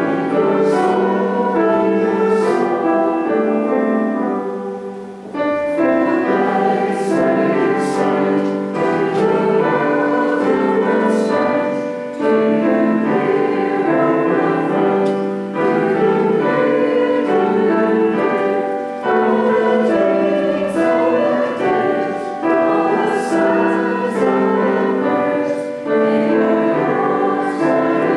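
Congregation singing a hymn together, in phrases with short breaks between them.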